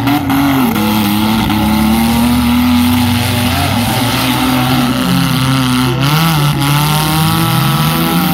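Several demolition-derby compact cars' engines running and revving at once, their pitches rising and falling independently over a constant racket.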